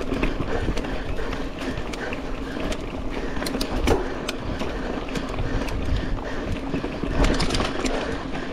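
Mountain bike ridden fast on a dirt race trail: steady tyre and riding noise with frequent sharp clicks and rattles from the bike.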